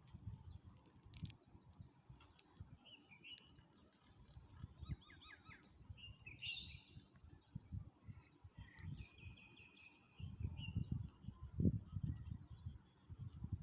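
Small birds chirping and twittering in quick, short trills throughout, over an uneven low rumble of wind on the microphone that swells near the end.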